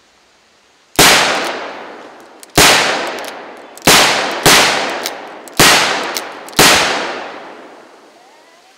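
Pietta replica Starr .44 black-powder percussion revolver fired six times in double action, in quick uneven succession, each sharp shot trailing off over about a second. All six chambers go off without a misfire or jam.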